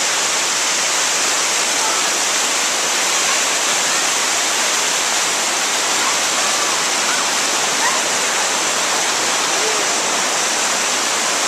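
Waterfall: falling water making a loud, steady rush.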